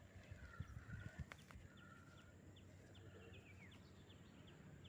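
Faint birdsong: wavering whistled calls and a short high chirp repeated about three times a second. A few soft knocks about a second in.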